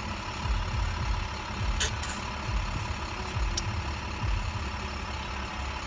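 Low, steady rumble of car cabin noise from the engine, with a few short sharp clicks about two seconds in and again past three and a half seconds.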